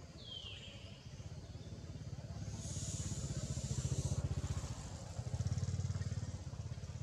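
A motor vehicle's engine running with a low, evenly pulsing rumble that grows louder through the middle and peaks twice. A short falling whistled call sounds just after the start.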